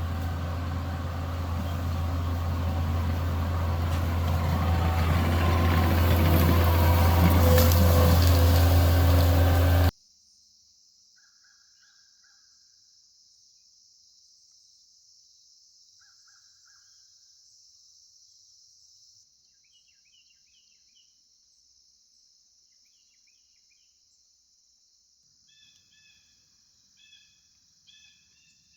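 Tracked skid steer's diesel engine running, growing louder for about ten seconds, then stopping abruptly. After that comes a faint steady high hiss with scattered short bird calls, which become more frequent near the end.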